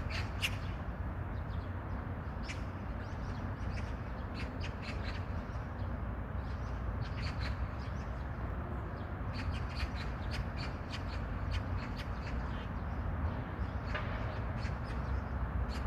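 Short bird calls, scattered and coming in quick runs in the middle stretch, over a steady low background rumble.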